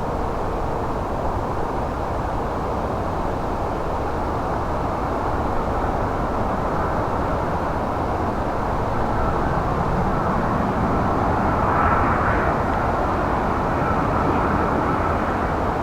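Airliner's jet engines on landing approach, a steady rumble that swells to its loudest about twelve seconds in as the plane passes closest.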